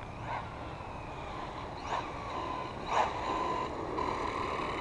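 Arrma Typhon BLX 3S RC buggy driving back slowly on asphalt: its brushless 3200Kv motor gives a steady high whine that comes in about three seconds in, with a few short clicks before it.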